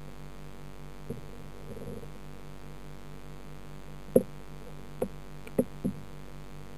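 Steady underwater hum of an aquarium filter in a turtle tank, pulsing about three times a second, as picked up by a submerged camera. A soft knock comes about a second in, then four short knocks come in the last three seconds, the first the loudest.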